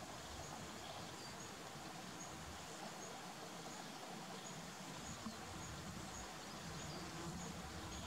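Faint outdoor ambience: a steady background hiss, with a faint, high, short chirp repeating about twice a second.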